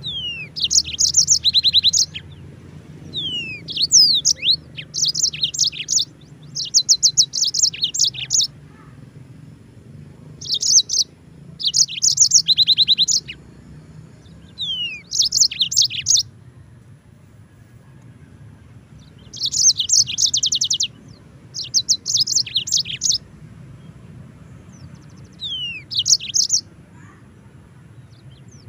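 Yellow-fronted canary (Mozambique canary) singing: short phrases, each made of a falling slurred whistle or two and then a fast, high trill, repeated with brief pauses and one longer pause a little past the middle.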